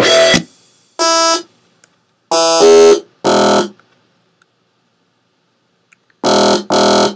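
Short, bright software-synthesizer notes sounding one at a time with silent gaps between them, about six in all, with two of them close together near the end. These are note previews as notes are clicked into a MIDI clip.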